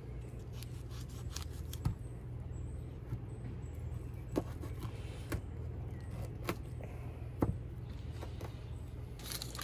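A knife cutting the heads and tails off rainbow trout on a wooden picnic table: a handful of short, sharp knocks as the blade goes through and strikes the boards, over a steady low hum.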